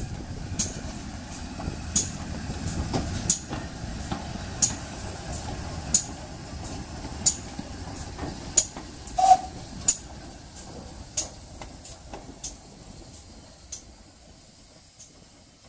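GWR Manor Class 4-6-0 steam locomotive No. 7820 Dinmore Manor running slowly past with steam hissing. Its wheels click over rail joints about once every 1.3 seconds over a low rumble that fades away toward the end.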